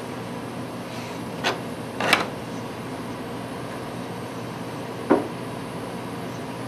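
Knocks and clicks of metal parts being handled in a Leica cryostat chamber: one about a second and a half in, a louder double knock about two seconds in, and another just after five seconds. Under them runs a steady machine hum.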